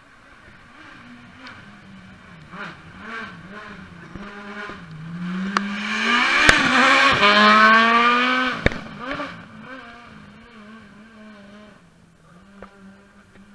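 Rally car approaching and passing at speed, its engine note rising under hard acceleration, loudest about six to nine seconds in, with two sharp cracks as it goes by, then fading into the distance.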